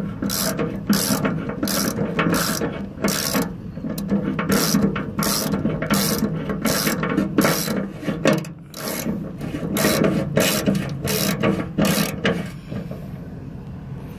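Socket ratchet wrench clicking as a bolt is tightened, in quick repeated strokes about two to three a second, stopping near the end.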